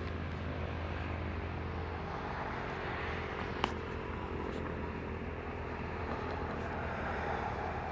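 Steady low outdoor rumble, with faint steady tones that fade out within the first two seconds and a single short click about three and a half seconds in.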